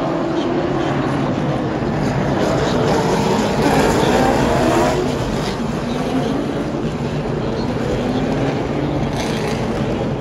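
Pack of late model stock car V8 engines running together as the field circles at pace speed behind the pace car. The pitch rises as a group of cars passes, then drops away about five seconds in.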